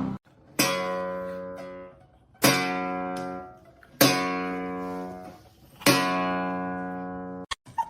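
Four strummed guitar chords, slowly spaced, each left to ring out and fade before the next.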